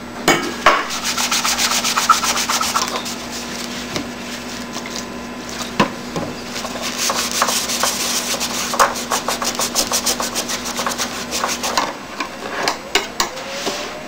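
Quick, repeated rubbing and scraping strokes as old white heat-sink paste is cleaned off. A steady low hum runs underneath and stops near the end.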